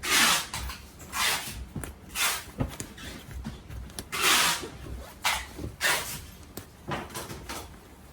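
Down jacket's shell fabric rustling in a series of about eight short swishes as the jacket is handled and turned over.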